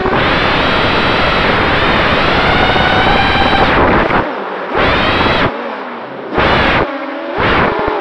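Emax RS2205 2300kV brushless motors and propellers of an FPV racing drone, heard close up from the drone itself, with a whine that rises and falls in pitch. A long full-throttle burst lasts about four seconds, then come three short throttle punches with a lower whine between them.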